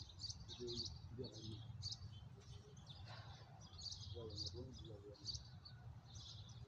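Small birds chirping over and over, faint, with short high calls following each other throughout, over a steady low background rumble.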